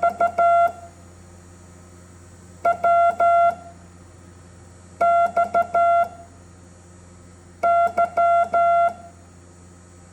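Morse code beeps: a single steady tone keyed on and off in groups of short and long beeps. Each group is one letter, and a new letter comes about every two and a half seconds, four letters in all.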